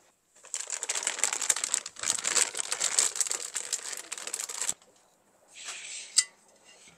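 Packaging being unwrapped, crinkling and rustling for about four seconds. A shorter rustle follows, ending in a sharp click.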